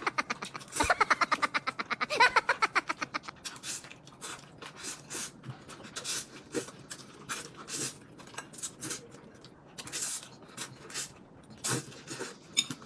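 Noodles being slurped in a quick run of sucking strokes for the first few seconds, then scattered wet chewing and lip smacks.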